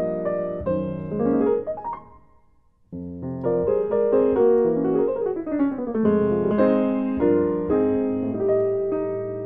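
Jazz piano playing chords and single-note lines. The sound fades almost to nothing about two seconds in, then comes back with a descending run and ringing chords.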